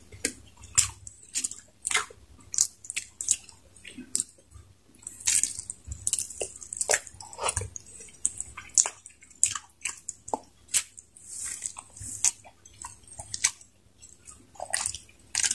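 Close-up wet chewing and lip-smacking of two people eating saucy chicken kaldereta and rice: irregular smacks and squelches, several a second.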